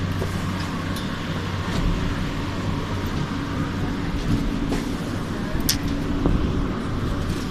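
Light rail train running, a steady low rumble and hum with a few faint clicks.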